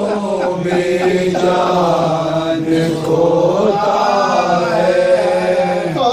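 Men's voices chanting a noha, a Shia mourning lament, in long drawn-out melodic lines that waver and bend without a break.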